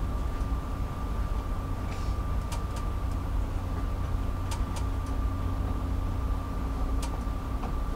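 Steady low rumble and hum of a high-speed wave-piercing catamaran ferry under way, heard inside its passenger cabin, with a few light clicks scattered through.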